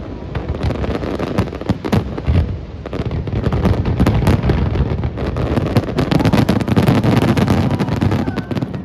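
Aerial fireworks display: many sharp bangs and crackles in quick, irregular succession over a heavy low rumble.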